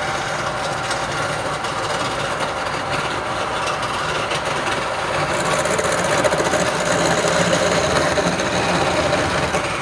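Wood lathe running, with a tool working the spinning wood in a steady, continuous grind. It grows a little louder about halfway through.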